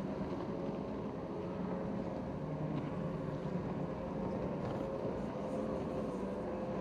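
Formula V racing powerboats' engines running flat out, a steady drone with a held pitch.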